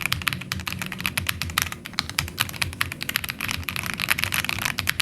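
Fast, continuous typing on a Royal Kludge M70 mechanical keyboard: rapid key clacks, many strokes a second, as a demonstration of its typing sound.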